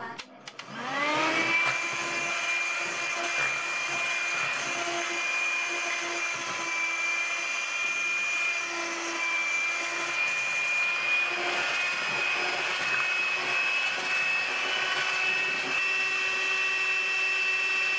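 Handheld electric mixer with twin wire beaters running in thin batter. Its motor spins up with a rising whine about half a second in, then runs steadily, its pitch creeping slightly higher near the end.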